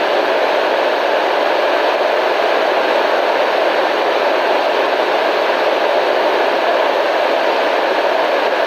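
Radio static: a constant, even hiss with no breaks or changes, strongest in the middle range, with little deep rumble.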